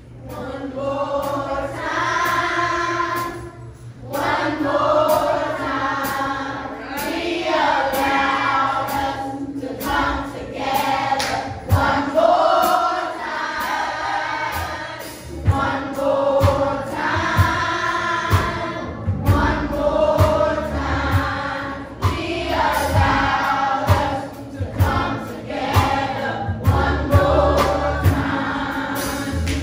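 A church children's choir, with a few adult voices among them, singing a song together.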